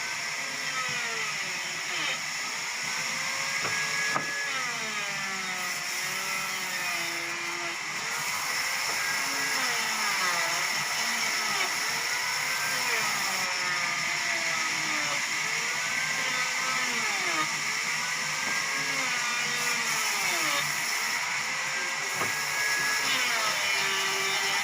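Sawmill machinery running with a high steady whine, its pitch dipping and rising again and again.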